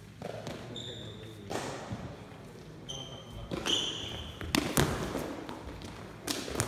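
Lábtoll-labda rally: sneakers squeak briefly on the sports-hall floor several times, then the shuttlecock is kicked and feet land with sharp thuds, the loudest about four and a half seconds in and again near the end, echoing in the hall.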